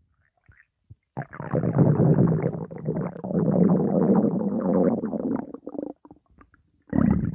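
Stomach growling: a long, rough rumble lasting about five seconds, then a second growl starting near the end.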